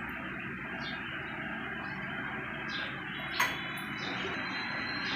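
Steady low room noise with a spoon clinking once against a ceramic dish about three and a half seconds in, and a few fainter taps, as soup is ladled from a bowl onto a plate.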